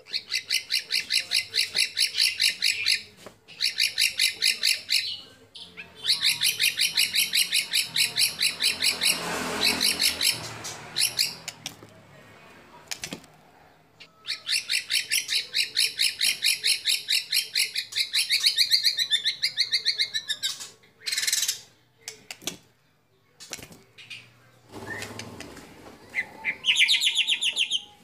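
White-rumped shama singing long runs of rapid-fire repeated notes, about ten a second, broken by short pauses.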